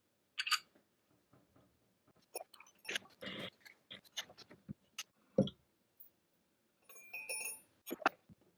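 Irregular clicks, clinks and knocks of small metal parts and tools being handled on a workbench, one of them ringing briefly near the end.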